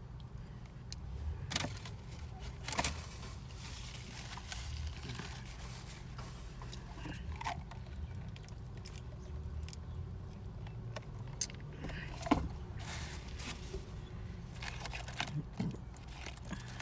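Eating sounds in a car: chewing and a few sharp crinkles and clicks of food packaging over a steady low car-cabin hum.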